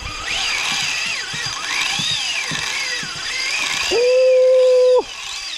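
Fishing reel drag whining as a hooked fish pulls line, its pitch rising and falling with the fish's runs. About four seconds in, a louder, perfectly steady one-second beep cuts in and stops abruptly.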